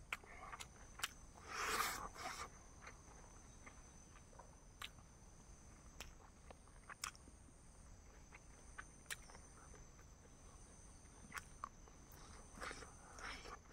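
Faint close-up eating sounds of chicken and rice: scattered clicks and crunches of chewing, with a louder rustling crunch about two seconds in and more near the end. Insects chirp steadily at a high pitch behind them.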